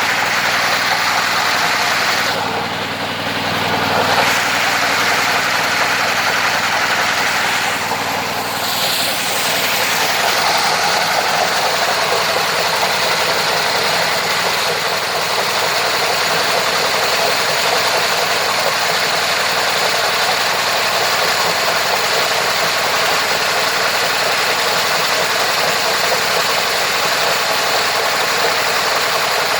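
Homemade engine-driven sawmill running, a loud steady mechanical noise that dips briefly about three seconds in and again about eight seconds in.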